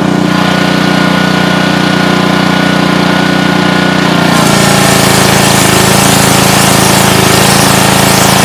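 Gas pressure washer engine running steadily. About four seconds in, the wand is triggered and a loud hiss of water and sand blasting from the sandblaster nozzle starts abruptly and keeps on.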